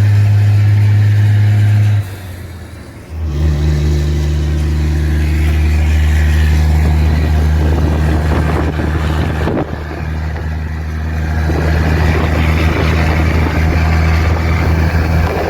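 Loaded truck's engine running through a straight exhaust pipe. About two seconds in, the throttle comes off for a gear change; about a second later the engine pulls again at lower revs and runs steadily under load.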